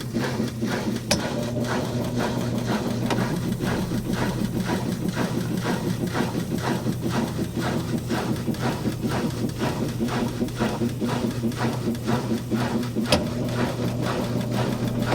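Whirlpool (Haceb) washing machine transmission running with a steady hum and a regular, rhythmic clatter as it picks up speed, a noise that points to worn transmission gears. Two sharp clicks, about a second in and near the end.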